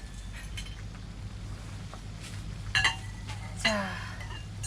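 Metal cooking utensils clinking against a pan and dishes twice, with short ringing tones, over a steady low hum.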